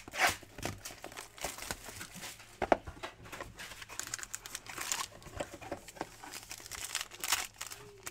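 A sealed trading-card hobby box being torn open and its foil-wrapped packs handled: irregular crinkling, rustling and tearing, with sharp snaps about a quarter-second and just under three seconds in.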